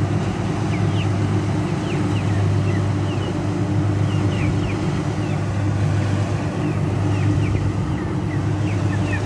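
Kubota DC60 combine harvester's diesel engine running steadily under load as the machine cuts ripe rice, a constant low hum. Short high chirps are scattered over it.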